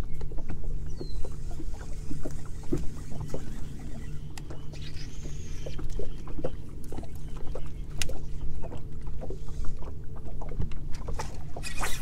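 Steady low hum of a bass boat's bow-mounted electric trolling motor, with water lapping and ticking irregularly against the hull.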